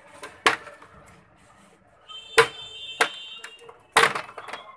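Plastic snap-clips of an HP LCD monitor's front bezel cracking loose as the bezel is pried off by hand: five sharp snaps, the loudest about two and a half and four seconds in. A faint high steady tone sounds in the background between them.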